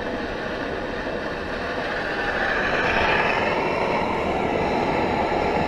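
Primus OmniLite Ti stove burning steadily on butane/propane gas with a steady rushing roar, heating a pot of water that is just coming to the boil. The sound grows a little louder and fuller about two seconds in.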